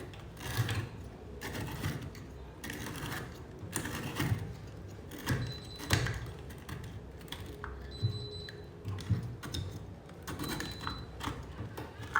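Irregular light clicks and knocks of a washing machine's filter being handled, with a knock every second or so.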